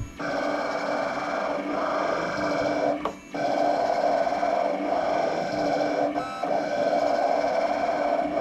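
USCutter vinyl cutter's motors whirring as the blade carriage and rollers move, cutting lettering into white heat transfer vinyl. The whirr stops briefly about three seconds in and dips again around six seconds, between moves.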